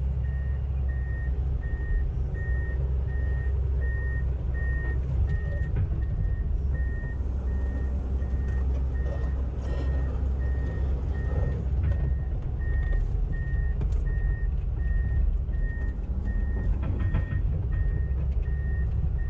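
Excavator's diesel engine running steadily at raised throttle with a low drone, while its travel alarm beeps evenly a little more than once a second as the machine moves.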